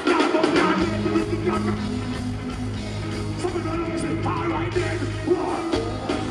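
Live band music played loud through a PA, with a steady bass line and regular drum hits.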